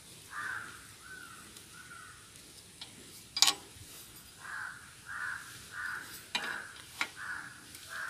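Crows cawing in short harsh calls, a few at first and then a steady run of about one call every two-thirds of a second. One sharp metallic click comes about three and a half seconds in, with two lighter clicks later, from the spanner and screwdriver being worked on the wheel's screw and nut.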